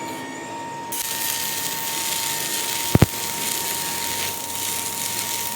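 Workshop machinery: a steady hiss sets in about a second in over a constant high hum, with one sharp knock about three seconds in.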